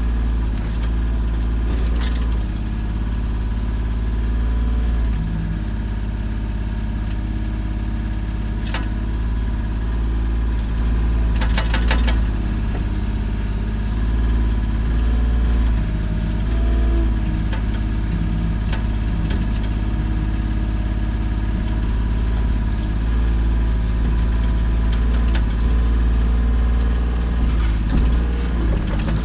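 Volvo EC25 mini excavator's diesel engine running steadily while it digs a trench, its tone wavering slightly as the hydraulics take load, with a few sharp clanks from the machine, several in quick succession about halfway through.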